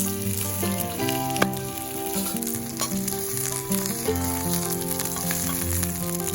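Food sizzling and spitting in a hot pan, with a steady hiss and small crackles, under background music of held notes.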